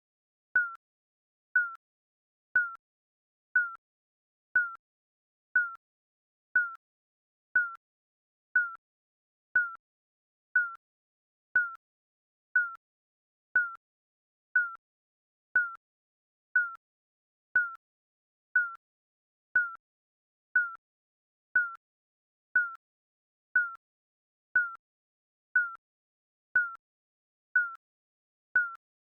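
Countdown timer sound effect: a short, slightly falling electronic beep once a second, marking each second of the count.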